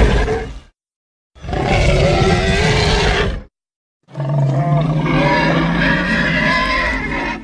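Tyrannosaurus rex roar sound effects: the tail of one roar fades out, then two separate roars follow, about two and three seconds long. Each roar is cut off cleanly by a short silence.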